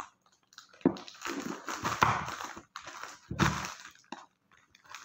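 Plastic courier packet crinkling and rustling as hands work it open, in a few irregular spells with short pauses between them.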